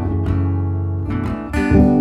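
Acoustic guitar playing slow chords, with a change of chord about one and a half seconds in.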